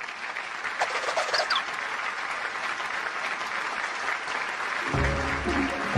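Audience applauding: dense, steady clapping that swells up over the first second. A lower sound joins about five seconds in.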